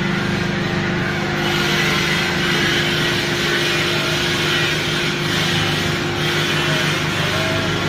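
Steady machine hum with one constant tone from a stainless-steel sink deep-drawing hydraulic press standing idle between strokes. A hiss of workshop noise rises about a second and a half in.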